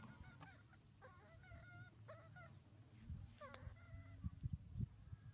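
A baby monkey giving a run of short, wavering high calls, repeated every fraction of a second, with a few low thumps in the second half.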